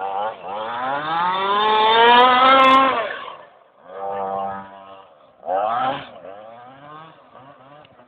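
Radio-controlled car's motor revving, its pitch rising for about three seconds, then two short bursts of throttle with lighter running between.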